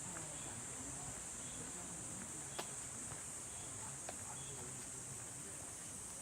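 Insects in summer vegetation giving a steady, high-pitched drone, with a couple of sharp clicks in the middle.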